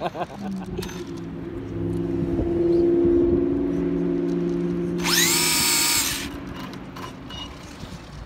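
Electric RC drag car's motor whining at low speed as the car creeps up to the start line. About five seconds in, a sharp rise to a loud, high whine holds for about a second as the motor spins up, then drops away.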